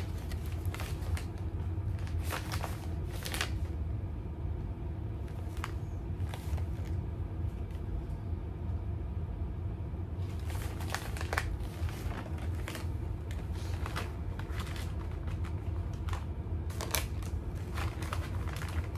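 Plastic pouches of Craisins dried cranberries crinkling as they are handled and turned over, in scattered bouts with quieter stretches between, over a steady low hum.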